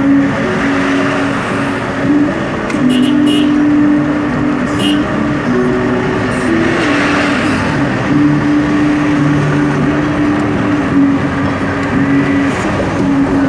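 Steady road and wind noise of a car driving at speed, heard from inside the car. The noise swells briefly about seven seconds in as another vehicle goes by close alongside.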